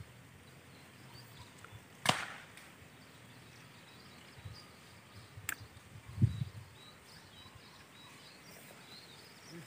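Quiet open-field ambience with faint, scattered bird chirps, broken by a sharp click about two seconds in, a fainter click a few seconds later, and a short low bump just after six seconds.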